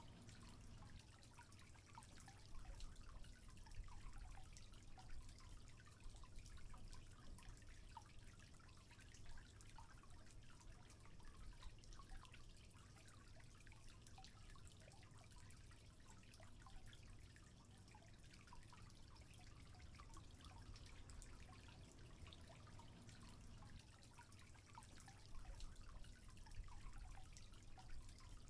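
Faint trickling water with scattered small drips over a steady low rumble.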